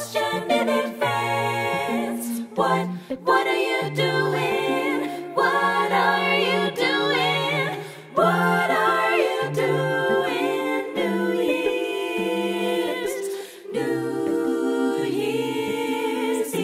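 Unaccompanied vocal group singing a slow ballad in close harmony, with a sung bass line beneath the upper voices. The phrases break briefly about halfway through and again near the end.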